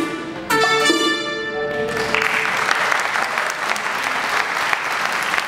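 A small band with trumpet and guitar holds a final chord that stops about two seconds in, and then the audience applauds steadily.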